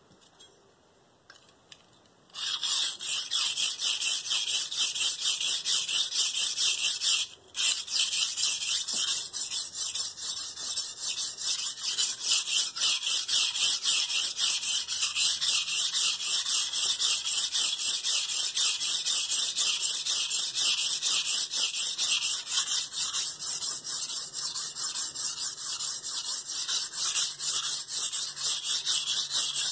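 Steel santoku blade scraped back and forth across a wet Shapton Pro 320-grit whetstone in rapid, even strokes, grinding a dull edge on the coarse stone. The strokes start about two seconds in and pause briefly around seven seconds.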